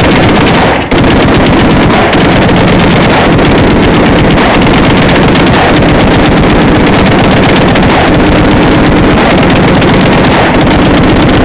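M2 .50 caliber heavy machine gun fire: long unbroken strings of automatic fire, the shots running together into one continuous loud clatter that overloads the recording, with only a brief break about a second in.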